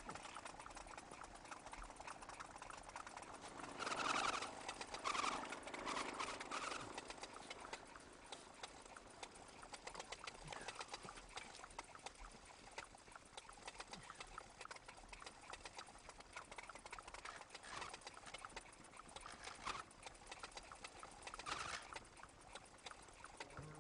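Small two-stroke engine of a VéloSoleX-style moped running with a fast, quiet puttering tick. A few louder short sounds come about four to seven seconds in.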